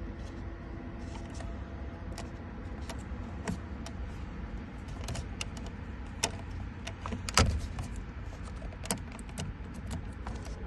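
Scattered light metallic clicks and taps of a tool and key working at a Chevy Cruze ignition lock cylinder while the cylinder is being released from the steering column, with one sharper knock about seven seconds in, over a steady low hum.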